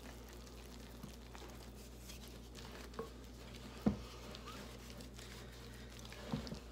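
Faint soft scraping and squishing of a wooden spoon stirring sticky bread dough in a glass bowl, with a few light knocks of the spoon against the bowl, the clearest about four seconds in.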